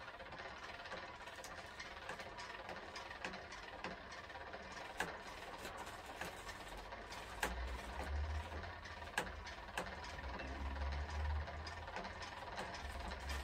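Class 153 diesel railcar's underfloor engine idling with a steady low rumble that grows stronger about halfway through, with scattered sharp clicks and rattles.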